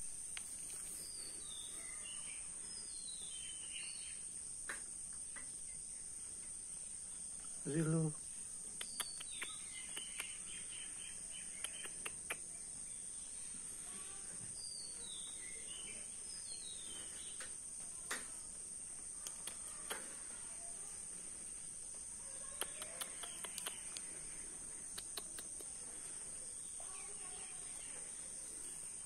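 Outdoor ambience: a steady high-pitched insect drone, with birds giving short falling chirps now and then and scattered light clicks. A brief voice is heard once, about a quarter of the way through, and it is the loudest sound.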